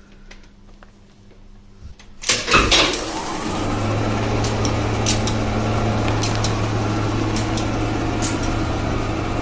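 Old relay-controlled lift starting up in its motor room: a burst of loud clacks from the relay controller about two seconds in, then the hoist motor runs with a steady hum while single relay clicks go on every second or so.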